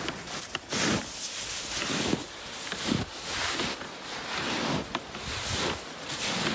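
Footsteps of hiking boots in snow, walking downhill at about one step a second.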